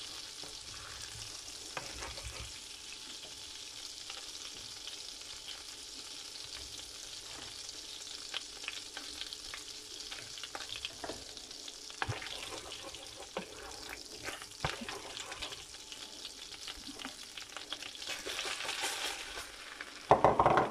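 Butter sizzling and foaming in a frying pan as it is browned into brown butter, with a wooden spoon stirring and now and then tapping the pan. Just before the end a short, louder burst of noise comes as breadcrumbs and sugar are tipped into the hot butter.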